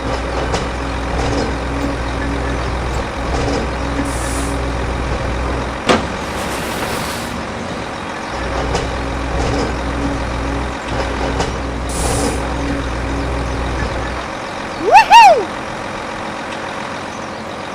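A truck engine running steadily with a low rumble, with a sharp knock about six seconds in. The rumble stops near the end, and a loud short tone rises and falls in pitch.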